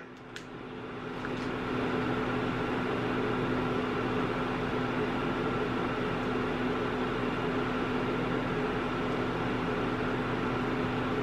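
Induction cooktop running under a pan of water as it heats: a steady electrical hum with fan-like noise that swells over the first couple of seconds, then holds even.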